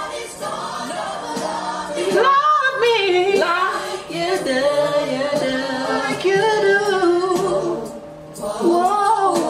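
A woman singing a soulful R&B ballad live, with backing singers harmonizing behind her. The singing drops away briefly about eight seconds in, then comes back.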